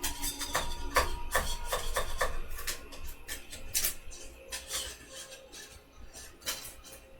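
Irregular clicks and taps of small hard objects being handled, several a second for the first few seconds and sparser after.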